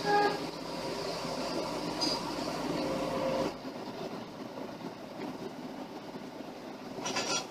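Tracked excavator's diesel engine and hydraulics running under load, easing off about three and a half seconds in. A brief high squeal at the very start and a short clatter near the end.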